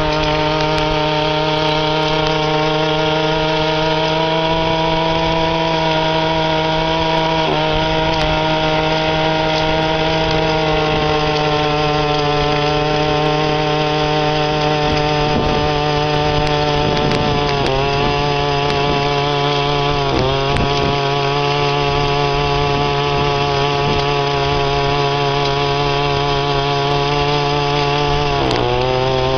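25cc two-stroke weed-eater engine on a motorized bicycle running at high revs under way. Its steady pitch dips and recovers briefly three times in the second half.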